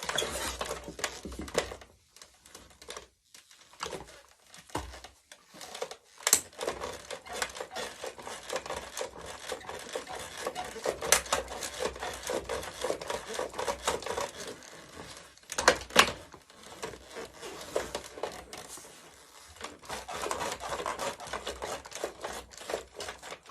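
Plastic body of a remote-controlled toy car creaking and crackling as it is pressed and crushed, an irregular run of clicks and crackles with a few sharper snaps.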